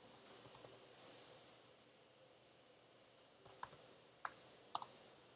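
Computer keyboard keystrokes, sparse: a quick run of soft clicks in the first second, then about five separate clicks after three and a half seconds, over near silence.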